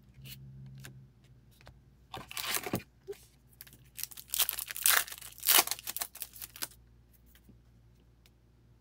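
Foil wrapper of an O-Pee-Chee Platinum hockey card pack being torn open and crinkled by hand, in a short burst about two seconds in and a longer, louder stretch from about four to almost seven seconds in.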